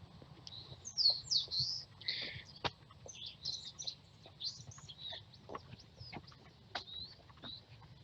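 Small birds chirping and twittering outdoors: many short, quick high calls, busiest and loudest in the first two or three seconds, with a few faint clicks among them.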